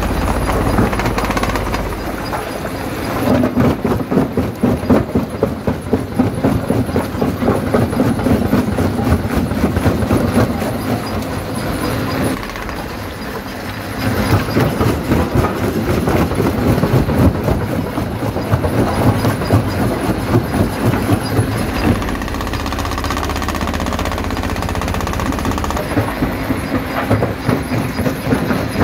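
Stone jaw crusher running, rock clattering and crushing between its jaws over a steady machine hum. The crushing comes in louder spells about three seconds in, again about fourteen seconds in, and near the end.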